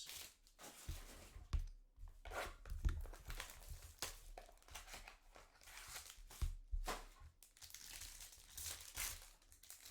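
Trading-card packaging being torn open and crinkled by hand, in irregular rustling bursts with a few soft knocks.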